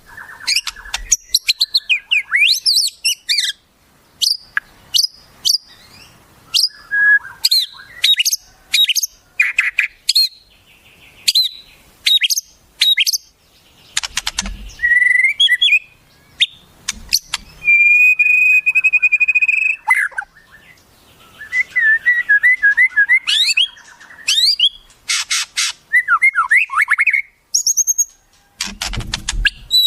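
Wild birds singing and calling in a fast run of varied chirps and whistled notes with quick pitch sweeps. A long steady warbled note comes a little past the middle, and a rapid buzzing trill follows later.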